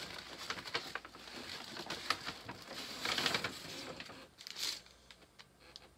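Paper takeout bag and sandwich wrapping being handled, rustling and crinkling with scattered light clicks and knocks; louder rustles a little after three seconds and again about four and a half seconds in.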